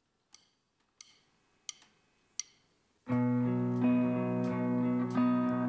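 Four evenly spaced sharp clicks counting in the band, then about three seconds in a live electric guitar starts the song's intro with sustained, ringing chords.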